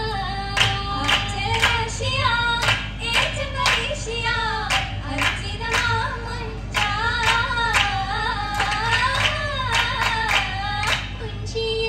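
Oppana: female voices singing a Mappila song melody, kept in time by the dancers' sharp group handclaps in a steady rhythm.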